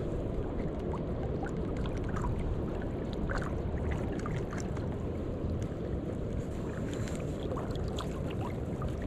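Steady low rush of flowing river water, with small splashes and gurgles scattered through it.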